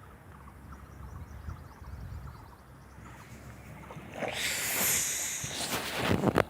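Low rumbling background, then about four seconds in a loud burst of water splashing for about two seconds, ending in a few sharp knocks.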